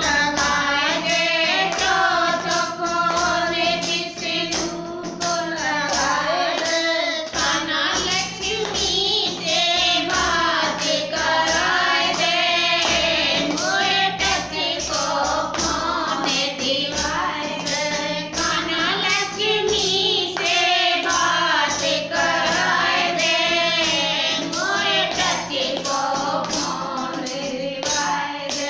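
A group of women singing a Hindi devotional bhajan together, accompanied by a steady rhythm of hand strikes on a jingled tambourine.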